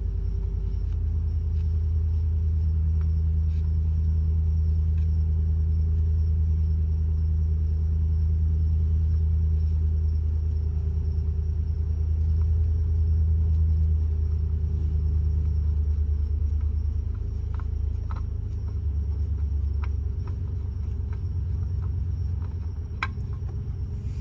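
A steady low rumble or hum, with a few faint clicks and taps in the last part.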